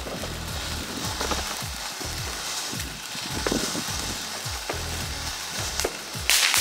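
Firework fizzing and sizzling with a few sharp pops, then a sudden, much louder burst of crackling about six seconds in. A bass-heavy music track plays underneath.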